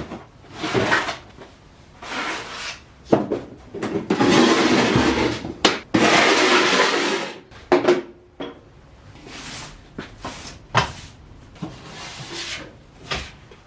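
Old rusted louver window being worked by hand, with clicks and knocks and two long grating scrapes of rusty metal about four and six seconds in. The louvers still work but are squeaky and rusty.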